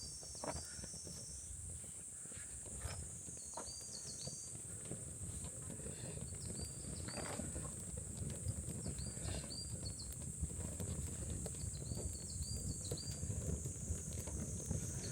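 Small wood fire crackling and popping, with a low rumble of flame that slowly grows, under a steady high drone of insects and repeated short chirps.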